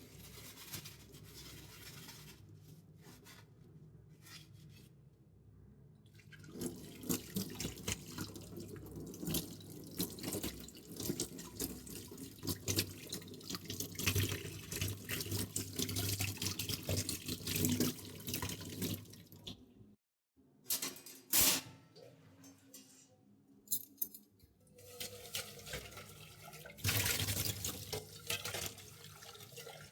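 Tap water running into a kitchen sink while metal vessels are washed, with frequent knocks and clinks of the utensils. Quieter for the first few seconds, then busier, with a brief break about two-thirds of the way through.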